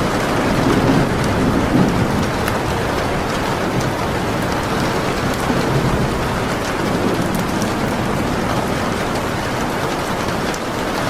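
Steady heavy rain mixed with the sharp, scattered crackles of a wood fire. A low rumble swells in the first couple of seconds, then eases.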